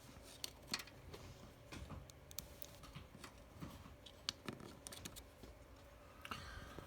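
Faint, irregular clicks and taps of hands handling a 3D printer's touch panel and its connector while the old panel is being plugged back in.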